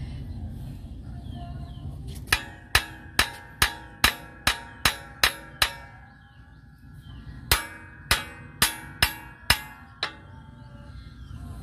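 Hammer blows on the metal brake shoe assembly of a truck wheel, each with a sharp metallic ring. They come in two runs, about nine quick strikes, a pause of about two seconds, then six more.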